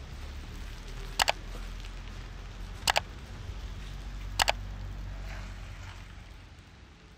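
Three sharp mouse clicks about a second and a half apart, each a quick double tick of press and release, over a low steady background rumble that fades out near the end.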